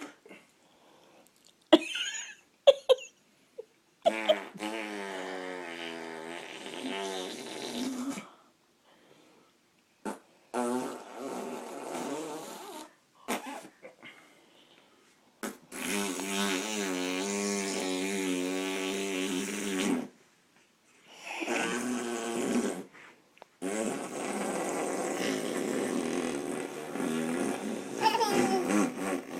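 Lip raspberries: about five long buzzing blows through the lips, each a few seconds long, with a wavering pitch and short pauses between them. A few short clicks come before the first.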